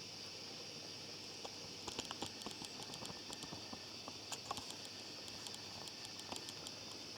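Model train running on its track, the wheels giving irregular sharp clicks over the rail joints, against a steady faint hiss. The clicks start about two seconds in and thin out toward the end.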